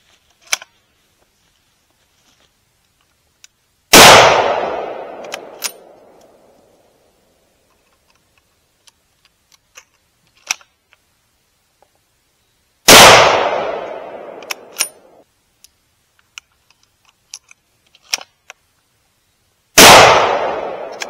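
.270 bolt-action scoped rifle fired three times, several seconds apart; each shot is a sharp crack with an echo that dies away over about two seconds. Light metallic clicks between shots come from the bolt being worked.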